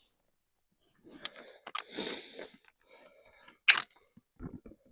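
Snow crunching in several short, uneven bursts, with a sharp click about three and a half seconds in.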